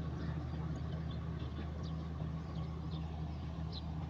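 Large stationary diesel engine running steadily with an even, low hum, faint short high ticks scattered over it.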